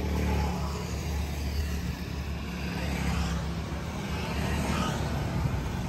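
Steady low engine hum of passing road traffic, with a swell of noise about three seconds in.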